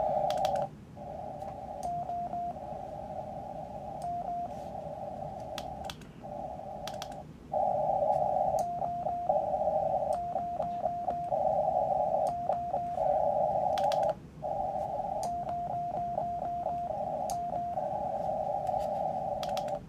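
Band noise from a QRP Labs QMX+ transceiver's receiver, heard as a steady, narrow hiss through its CW audio filter with no signals on it. The hiss drops out briefly a few times as the radio is switched between bands and breaks into quick stutters as it is tuned, with faint clicks from the controls.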